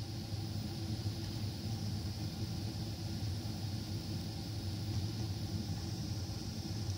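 Steady cabin noise of a jet airliner in flight, heard from inside the cabin: a low, even engine drone under a constant airflow hiss.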